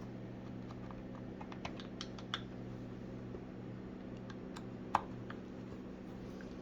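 Scattered light clicks and taps of a screwdriver and screws against the recoil starter housing of a Husqvarna 55 chainsaw as the screws are tightened, with one sharper click about five seconds in. A steady low electrical hum runs underneath.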